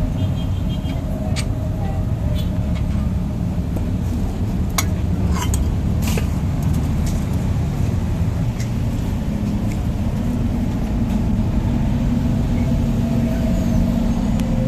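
A vehicle engine running steadily with a low rumble, with a few light clicks and knocks about five to six seconds in.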